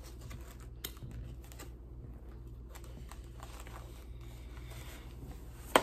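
Faint small clicks and rustles of a paper plate of burger and fries being handled while eating, over a steady low room hum, with one sharp click near the end.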